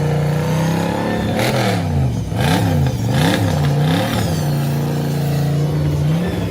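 Vehicle engine running steadily, then revved up and down three or four times, about a second apart, before settling back to a steady note.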